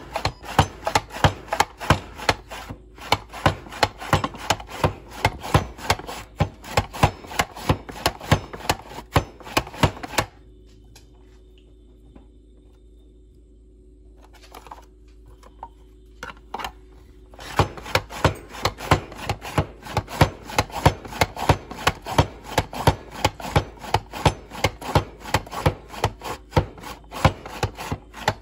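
Plastic Pampered Chef Rapid-Prep Mandoline being pumped, its handle pushed down again and again to cut cucumber into thin julienne sticks: a fast run of loud clacking strokes, about two to three a second. The pounding stops about ten seconds in and starts again some seven seconds later.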